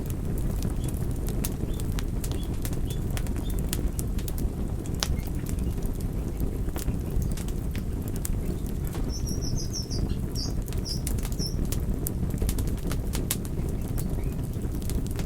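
Campfire burning: a steady low fluttering of flames with sharp crackles and pops scattered throughout. A brief run of high chirps comes in about nine seconds in and stops a couple of seconds later.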